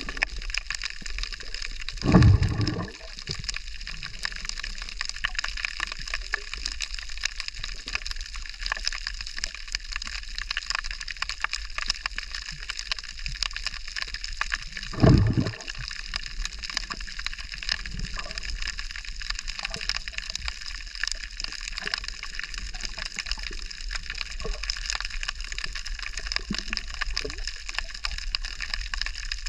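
Water at night in a sea cove: a steady hiss with dense fine crackling and sloshing, broken by two loud low thumps, one about two seconds in and one about fifteen seconds in.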